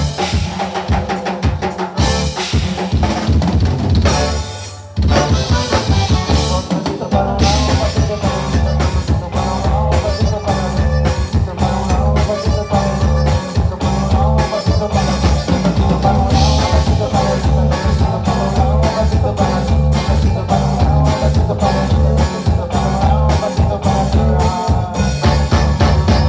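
Live conjunto band playing an instrumental passage: button accordion over drum kit, bass and guitars with a steady beat. The band drops out briefly about four seconds in, then comes back in full.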